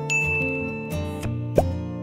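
Strummed acoustic guitar background music, with a bright chime-like ding sound effect just after the start, as the notification bell appears, and a quick rising pop effect about a second and a half in.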